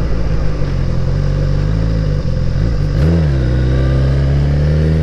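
Suzuki GSX-R1000 K7's inline-four engine running under way, with a quick flick in the engine note about three seconds in, then its pitch rising steadily as the bike accelerates.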